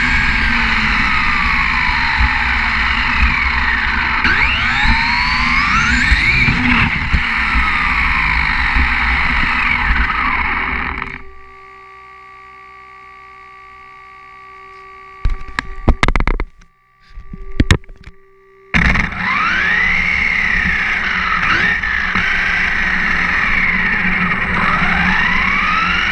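RedCat 1/10 monster truck's electric motor whining as it drives over asphalt, its pitch sliding up and down with the throttle over tyre and road rumble. About eleven seconds in it stops, leaving a faint steady hum with a few sharp knocks, and the whine and rumble return about eight seconds later.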